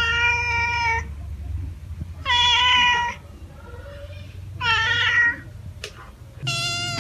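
Domestic cat meowing: four separate meows, each about a second long, spaced about two seconds apart.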